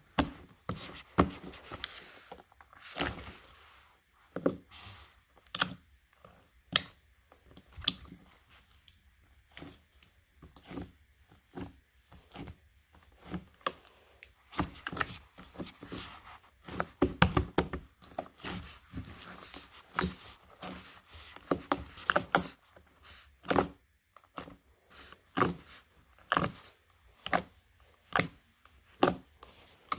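Slime being squished, stretched and poked by hand, making irregular sticky clicks and pops, several a second at times, with short pauses between.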